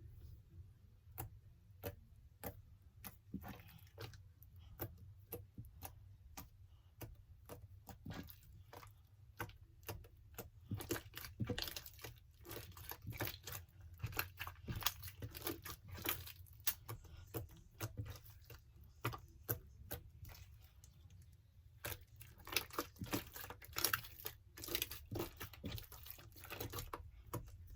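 Homemade glue-and-activator slime squished, pressed and stretched by hand, making a quick run of small sticky clicks and crackles. They are sparse at first and thicken about a third of the way in, and again near the end.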